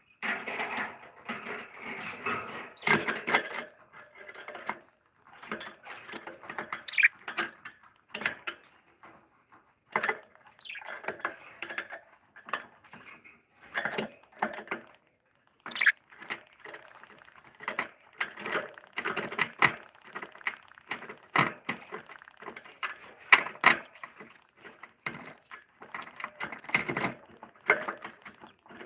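Lovebirds moving about: irregular scratching, rustling and sharp clicks in short bursts.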